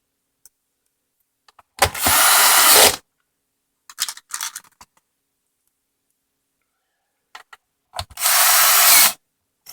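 Cordless drill driving screws into the Roomba's plastic housing, with its clutch set low: two runs of about a second each, one near the start and one near the end, with a few light clicks of handling between them.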